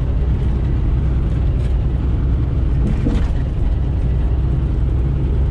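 Semi truck's diesel engine and road noise droning steadily inside the cab while the truck cruises along the road.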